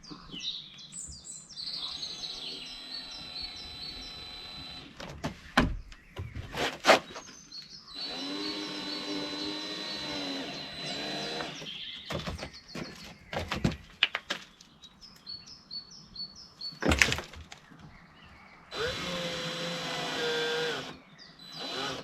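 Cordless drill-driver running in bursts of a few seconds, driving screws into the plastic shed panels, its pitch dropping as each screw seats. Sharp knocks of plastic parts are heard between the bursts, and birds chirp faintly behind.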